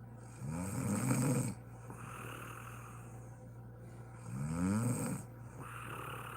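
A sleeping woman snoring: two loud snores about four seconds apart, each starting with a rising pitch, with quieter breathing between them. A steady low hum runs underneath.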